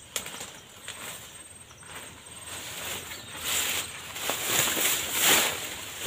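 Grass and leaves rustling as someone pushes through dense undergrowth, with a few faint snaps early on. It swells in louder waves from about halfway through.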